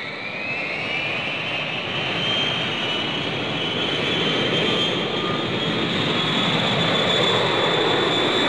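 Jet airliner engines: a high whine that rises in pitch in the first second and then holds, over a broad rushing noise that grows steadily louder.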